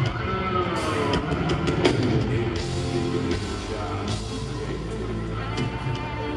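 Loud live music through a stage PA, with drum hits and sustained instrument tones.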